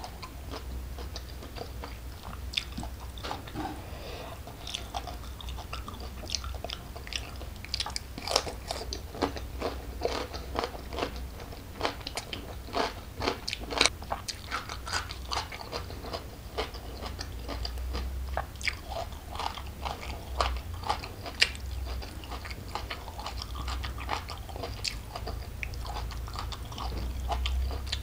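A person chewing crunchy food close to the microphone: many irregular, sharp crunches and bites.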